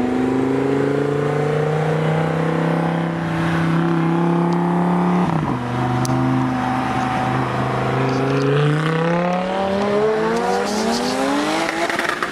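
Sports car engine accelerating hard through the gears: its note climbs steadily, drops with an upshift about five seconds in, then climbs again toward the end.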